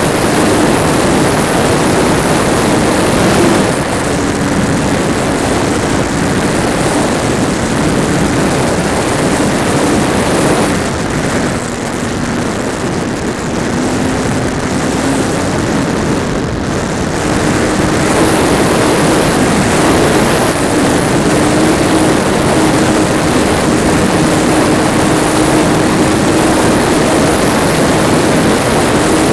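Electric motor and propeller of a small foam radio-controlled plane in flight, heard from an onboard camera right behind it: a steady whirring hum over a loud rushing noise. About eleven seconds in, the pitch and loudness drop as the throttle eases, then rise again a few seconds later.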